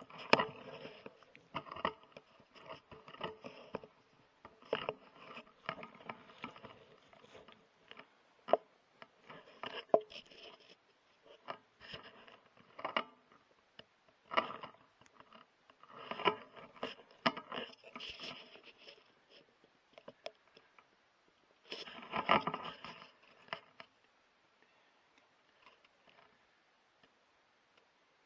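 Scraping, rustling and sharp clicks close to the microphone, coming in bursts every second or two, with a longer cluster a little past twenty seconds in; the noise dies away near the end.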